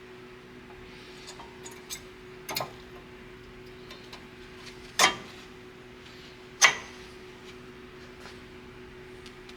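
Sharp metallic clinks and knocks of hand tools and brake parts being handled, a few light ones then two louder ones about five and six and a half seconds in, over a steady low hum.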